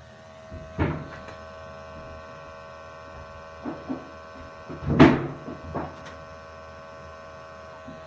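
Steady hum of a running gas-fired steam boiler, broken by several sharp knocks and thumps, the loudest about five seconds in.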